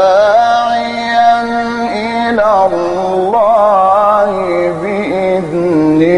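A male Qur'an reciter's voice chanting in the melodic mujawwad style: one long drawn-out melismatic phrase, the held pitch bending and wavering in ornaments, moving to a new note about two and a half seconds in.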